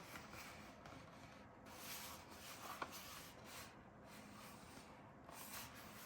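Faint rustling and rubbing of packaging being handled in short stretches, with one sharp click about three seconds in.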